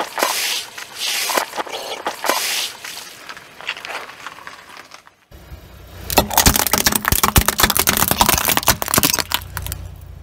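A car tyre rolls onto a squishy rubber toy, giving a few squelching, hissing bursts as the slime spurts out. After an abrupt change it crushes a row of gel-filled plastic M&M-shaped cases, with a dense run of sharp cracking and crackling over a low rumble.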